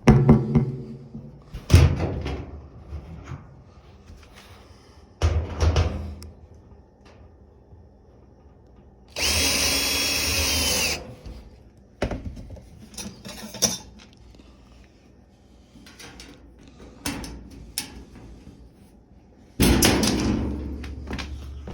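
Power drill driving the bolts back into a dryer's back panel: several short bursts and one steadier run of about two seconds near the middle, with knocks and clicks from handling the panel and bolts in between.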